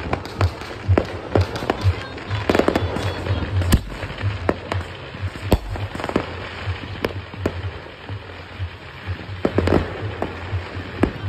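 Fireworks and firecrackers going off all around: a dense, irregular string of bangs and pops, with heavier booms about four and five and a half seconds in and bursts of crackling around two and a half and ten seconds in.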